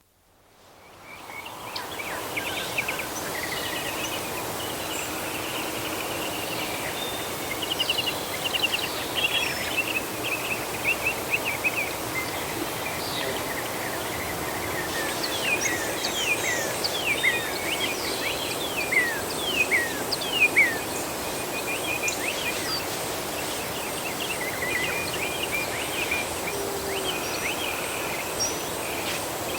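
Forest ambience: songbirds chirping and trilling over a steady background hiss. The calls are busiest about halfway through, with many quick downward-sweeping whistles, and a faint steady high insect whine runs underneath. It fades in over the first couple of seconds.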